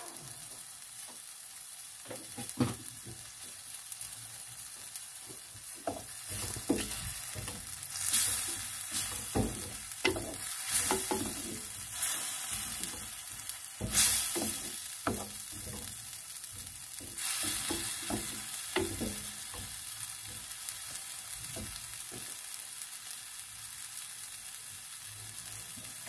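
Tomato, garlic and spice sauce sizzling and frying in oil in a glazed clay pan, with a wooden spoon stirring it and knocking and scraping against the pan in a run of strokes through the middle.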